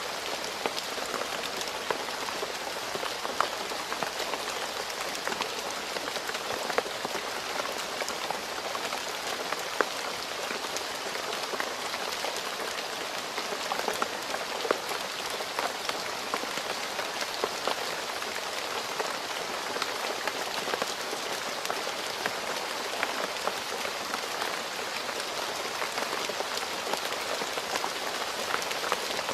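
Steady rain falling on a hard surface, a constant patter with many separate drop ticks standing out.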